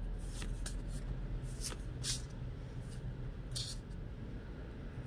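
Tarot cards being handled and slid against one another as the deck is leafed through, giving several brief swishes over a low steady hum.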